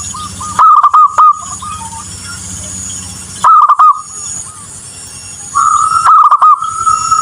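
Zebra dove (perkutut) cooing in short, rapid staccato phrases, three times. A steady high hiss runs underneath, and a steady whistle-like tone comes in near the end.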